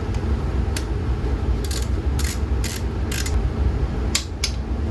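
Ratchet wrench driving a T45 Torx bit, clicking in short, irregular strokes about half a second apart as the exhaust clamp bolt is tightened, over a steady low rumble.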